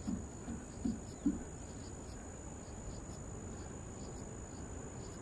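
A steady, high cricket trill, with a few short low pulses about 0.4 seconds apart that stop in the first second and a half.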